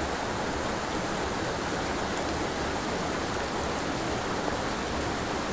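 Small mountain creek rushing and splashing over rocks, a steady even rush of water.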